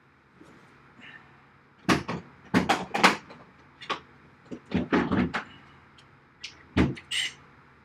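Hard objects being handled: a dozen or so sharp knocks and clunks in uneven clusters, with a door or cupboard-like bang among them, the sound of someone rummaging for a tool.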